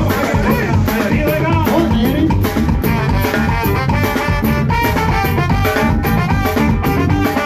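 Live band playing upbeat dance music on electronic keyboards with a drum beat.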